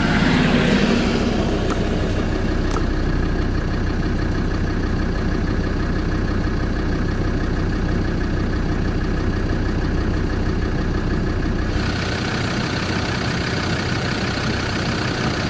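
Four-wheel-drive vehicle's engine running steadily while driving over desert sand, a constant drone with a low hum. About twelve seconds in the low hum drops away and a lighter, hissier steady noise takes over.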